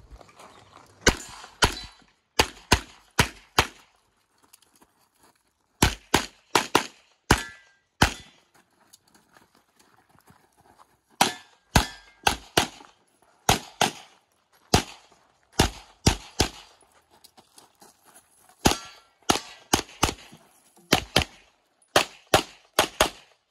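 Tanfoglio pistol fired rapidly in quick pairs and short strings of shots, dozens in all, with gaps of a second or two between groups.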